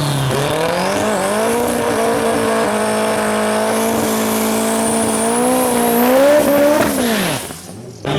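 Revving drag vehicle engine, the Nissan SR20 2.0-litre four-cylinder: held at steady high revs for a few seconds, climbing higher, then falling away about seven seconds in.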